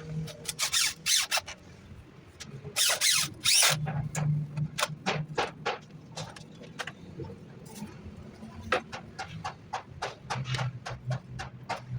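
Irregular sharp taps and knocks with a couple of short rasping strokes, the louder stroke about three seconds in: hand work on wood.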